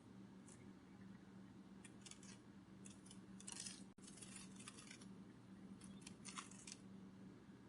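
Faint, crisp fluttering clicks in short irregular clusters: a butterfly wing-flutter sound effect, over a steady low hum.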